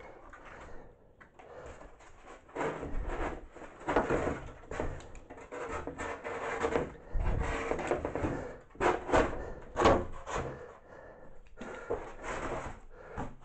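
A cutter knife cutting and scraping through Styrodur extruded-polystyrene foam board in irregular scratchy strokes, with a few knocks as foam pieces are handled and fitted.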